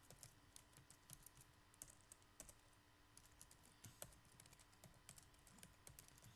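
Faint computer keyboard typing: irregular keystroke clicks, several a second, over a faint steady hum.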